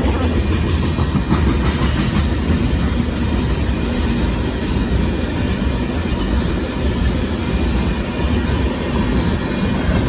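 Freight train's covered hopper cars rolling past close by: a steady, loud sound of steel wheels running on the rails.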